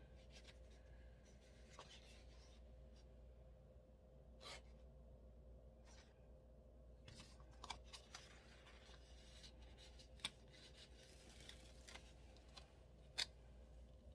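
Near silence with faint paper handling: a few soft clicks and rustles as sticker-book pages and a paper sticker are handled, over a faint steady hum.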